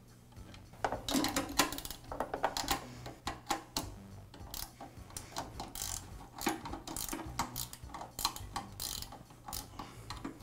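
Motor-mount bolts and nuts being fitted and tightened to secure a Ridgid drain auger's replacement motor to its steel frame: a string of quick metallic clicks and rattles starting about a second in.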